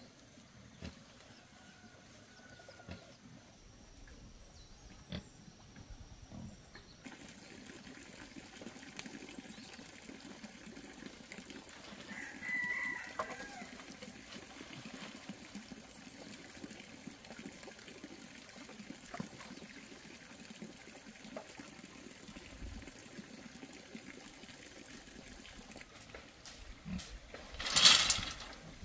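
Quiet farmyard background with scattered small clicks and knocks. About twelve seconds in a rooster crows once, and near the end comes one short, loud, harsh noise.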